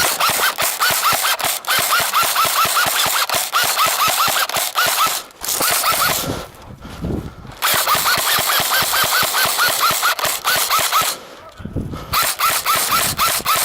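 Electric airsoft guns firing on full auto in long rapid bursts, with a breaks at about 5 seconds in and again at about 11 seconds.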